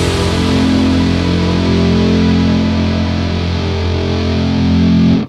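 A final heavily distorted electric guitar chord through an Orange Dark Terror tube amp, held ringing for about five seconds and then cut off abruptly.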